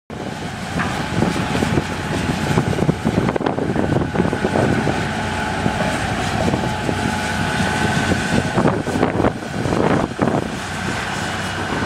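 Tracked demolition excavator at work, its engine and hydraulics running with a steady whine, and repeated knocks and crunching of rubble as the arm pulls at the building.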